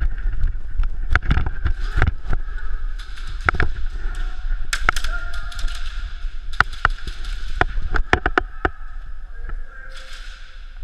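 Airsoft guns firing: an irregular scatter of sharp shots, some single and some in short quick strings, over the noise of players moving.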